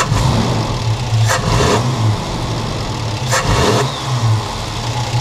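Nissan GQ Patrol's 4.2-litre straight-six petrol engine running just after its first start following a cylinder head and camshaft rebuild, with the throttle blipped briefly twice.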